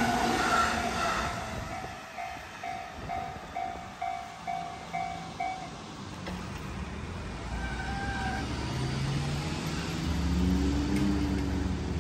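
An electric commuter train runs past for the first second or so. Then a railway level-crossing warning bell dings about twice a second and stops a little before halfway. Near the end a motor scooter's engine rises in pitch as it pulls away across the tracks.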